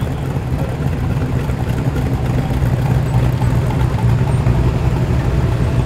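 Car engines running steadily as slow-moving cars roll past in a queue, the nearest a late-model Ford Mustang; a continuous low engine note.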